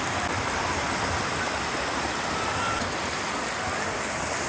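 Steady rush of a shallow, rocky stream, its water gushing over stones and riffles.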